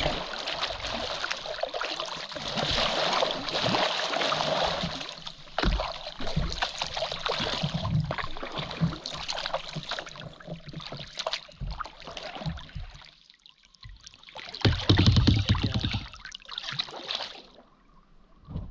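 Paddles dipping and splashing in river water, with water trickling off the blades between strokes. About fifteen seconds in there is a louder rush of noise with a low rumble.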